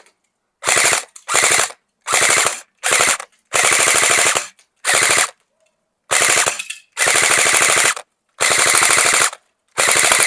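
Game Face Insurgent AK-47 electric airsoft rifle (AEG) firing full-auto in short bursts, about ten of them, each a rapid run of shots as the gearbox cycles, with brief pauses between bursts.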